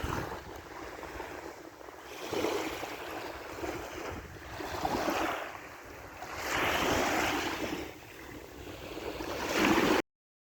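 Sea waves washing onto the shore, the surf noise swelling and fading about every two to three seconds.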